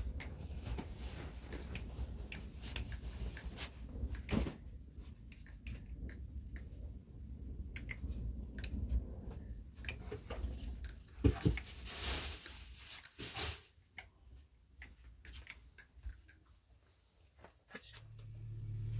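Scattered knocks, clicks and rustles of objects being handled, with one louder knock about eleven seconds in followed by a brief rush of noise. A low steady hum comes up near the end.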